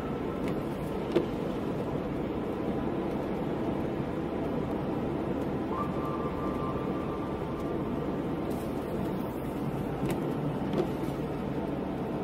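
Steady road and tyre noise of a car driving on a rain-wet road, heard from inside the cabin, with a single click about a second in.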